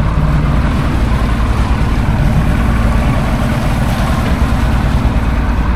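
Motorboat engine running steadily, a low even hum under a continuous rushing noise.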